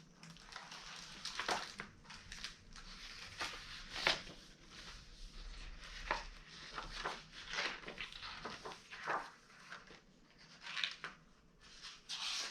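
Paper rustling and crinkling with scattered light knocks as the pages of a hardcover picture book are handled and turned.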